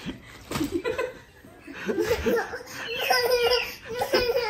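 A toddler babbling and giggling in a high voice, mostly in the second half.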